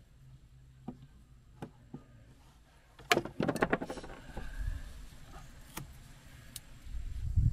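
Handling of a heavy 8 AWG battery cable at a terminal block: a few light clicks, then a quick run of louder clicks and rattles about three seconds in, with some rustling and a couple more clicks near the end.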